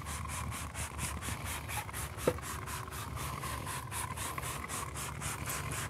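Trigger spray bottle of degreaser being pumped rapidly onto a car tire and wheel: quick repeated spritzes, about four a second, with a sharper click about two seconds in.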